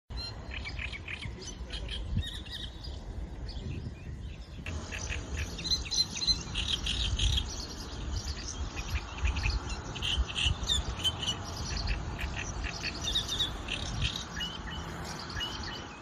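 Great reed warbler singing: loud, harsh, chattering phrases of repeated grating notes, with a low rumble underneath.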